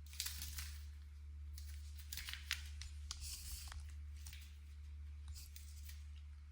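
Scattered short rustling and scratching noises in irregular clusters as a cat chases a bird around a room, with a sharper click about two and a half seconds in, over a steady low hum.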